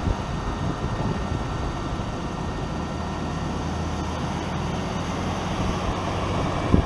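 Tractor engine running steadily under load, heard from inside the cab, with a single knock near the end.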